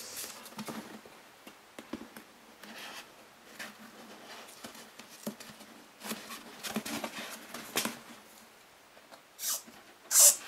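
Hands handling a soft foam mask shell and pressing a cut foam reinforcement strip onto its inner seam: quiet rubbing and rustling with small clicks, and a few short, louder scrapes near the end.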